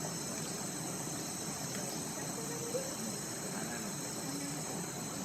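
A steady chorus of rainforest insects: a high drone made of several unbroken tones.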